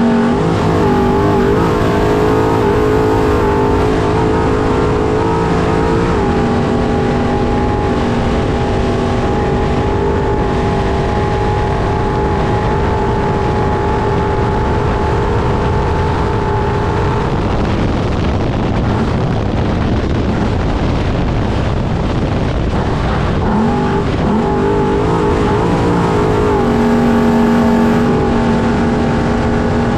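Trophy truck's engine pulling hard at speed, heard from on board over heavy wind and off-road noise. The engine note holds steady for long stretches, wavers and drops away for several seconds about halfway, then climbs and settles again near the end.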